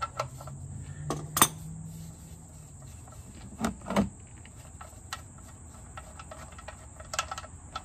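Steady high chirring of insects, with a few sharp metallic clicks and taps as an oil drain plug is turned out of the pan by hand. The sharpest click comes about a second and a half in, and a faint low hum fades after about two seconds.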